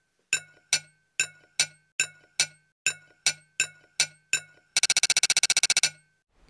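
Glassy clinking pings, about two a second, each ringing briefly, like cutlery tapping dishes during a meal. About five seconds in they speed up into a fast run for about a second, then stop.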